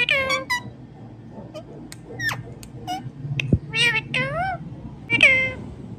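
Indian ringneck parrot mimicking a cat's meow: three meow-like calls, near the start, about four seconds in and near the end, with short squeaks and clicks in between.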